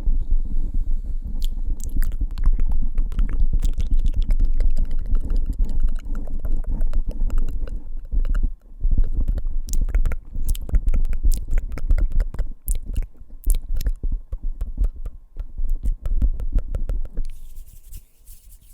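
Fingertips tapping rapidly on a microphone: a dense run of taps, each with a heavy thud, pausing briefly about eight seconds in and stopping shortly before the end.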